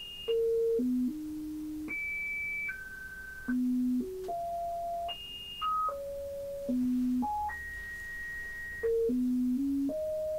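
Synthesizer tone, close to a pure sine, jumping from pitch to pitch in irregular steps, about nineteen notes, each held from a fraction of a second to about a second and a half, some high and some low. The steps come from the QAO quantizer firmware on a Qu-Bit EON Eurorack module, clocked by its slowed internal LFO.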